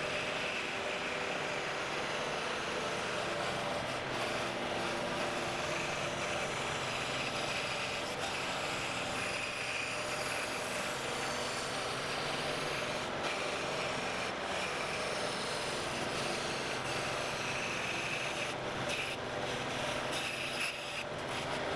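A woodworking power tool's motor running steadily, with a few short knocks near the end.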